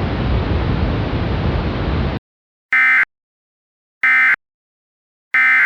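Steady static hiss that cuts off abruptly about two seconds in, then three short, identical digital data bursts about 1.3 s apart: the SAME end-of-message tones that close an Emergency Alert System warning.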